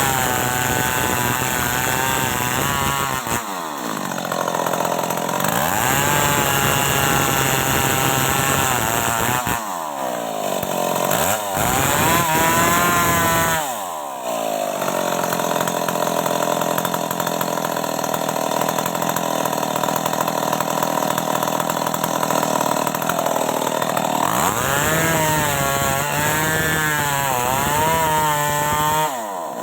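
Stihl MS 381 two-stroke chainsaw cutting wood, held mostly at high revs. The engine drops back sharply several times and revs up again.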